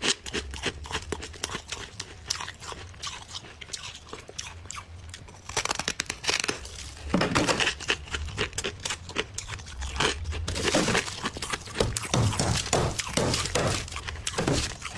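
Thick, snow-like frost packed inside a frozen-over freezer being scraped and crunched by hand: dense crackling and crinkling that gets louder and busier about halfway through.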